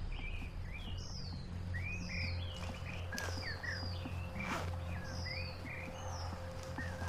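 Birds chirping: many short whistled calls, some rising and some falling in pitch, overlapping one another over a steady low rumble, with a faint steady hum joining about a third of the way in.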